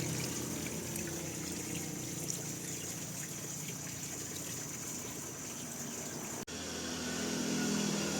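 Water running and splashing while a cat is washed with soap and scrubbed, a steady wet wash. The sound drops out for an instant about six and a half seconds in and comes back changed.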